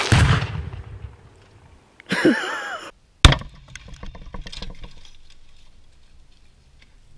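Two loud rifle shots at a tannerite target: one at the very start with a rumbling tail, and a sharper, louder one a little over three seconds in, followed by scattered clicking that fades out. A short wavering-pitched sound comes between them.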